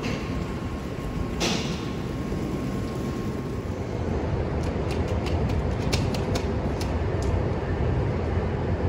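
Amtrak train rumbling steadily in the covered station trackway, a little louder after the midpoint. There is a brief hiss about a second and a half in and a quick run of sharp clicks in the middle.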